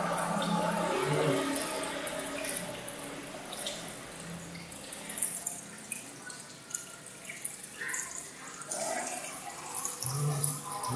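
Aquarium water trickling, with irregular drips and small splashes.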